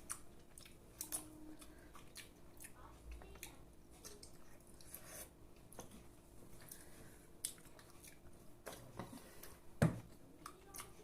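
Close mouth sounds of eating a syrupy rasgulla: soft, wet chewing and lip-smacking clicks, with one louder low thump near the end.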